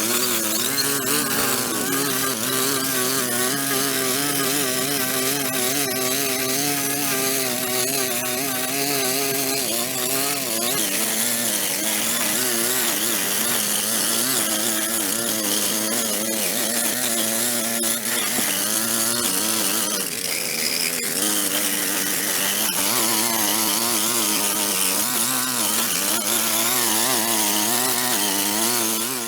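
Small petrol engine of a power tool running at working speed, its pitch wavering up and down as the load on it changes.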